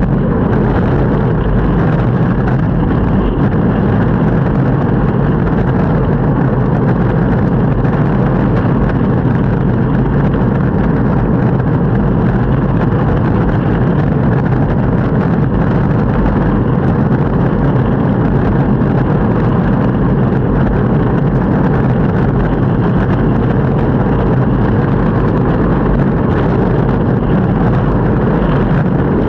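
Longboard wheels rolling over pavement: a steady, unbroken rumble.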